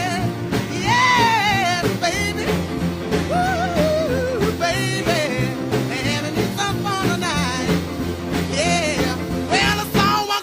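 Rock music with a man singing over a steady beat and bass.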